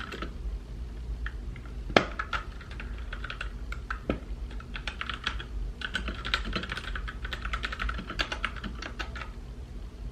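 Typing on a mechanical keyboard: quick runs of key clicks with short pauses, and one louder knock about two seconds in.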